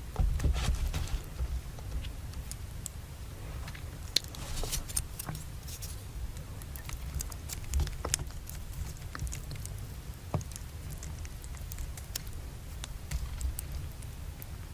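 Close-miked eating and food-handling sounds: scattered small clicks and crackles, busiest about four seconds in, over a low rumble.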